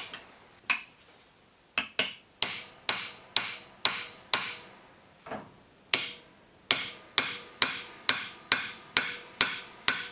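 Hammer tapping a screwdriver wedged into the joint between a winch's electric motor housing and its drum support. The sharp metal taps each ring briefly, sparse at first, then about two a second, as the rusted, sealed joint is worked loose so the motor can be pulled off.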